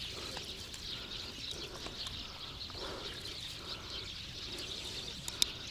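Many small birds chirping continuously in a dense chorus, with one sharp click near the end.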